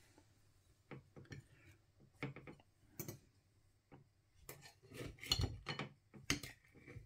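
Knife and fork cutting into a microwaved steak and kidney pie on a ceramic plate: scattered soft clicks and scrapes of cutlery against the plate and pastry, growing busier in the second half.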